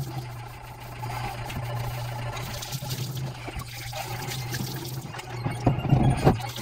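Tap water running from a plastic faucet into a stainless steel sink, splashing as a hand rinses a sponge under the stream, with a few sharper, louder sounds near the end.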